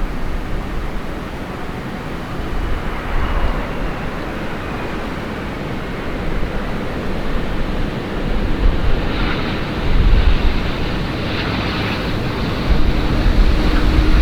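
Strong gusty wind buffeting the microphone: a steady rushing noise with a low rumble that swells with each gust, strongest near the end.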